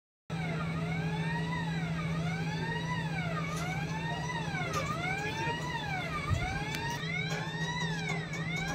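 A siren wailing, its pitch rising and falling in a regular cycle about every second and a quarter, over a steady low hum.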